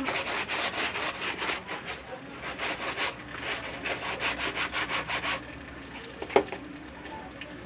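Wet clothes being scrubbed by hand, a soapy denim garment rubbed against itself in a washbasin in quick, even strokes about four a second. The scrubbing stops about five seconds in, and a single sharp knock follows about a second later.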